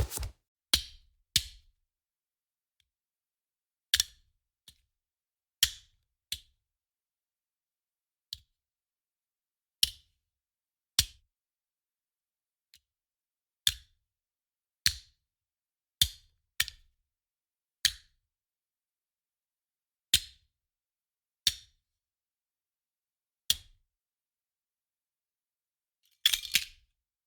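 A run of separate throw sound effects, about twenty of them, each a brief sharp sound that dies away quickly, with gaps of one to two seconds between them and a quicker cluster near the end.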